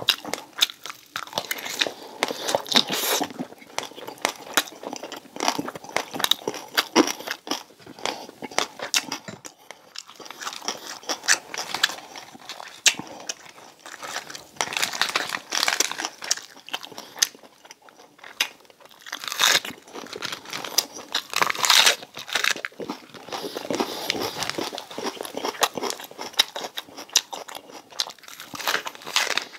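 Close-up crunching and chewing of crispy deep-fried pork belly crackling, in repeated bouts of sharp crackles. At times there is also the crinkling and tearing of crisp lettuce leaves being torn by hand.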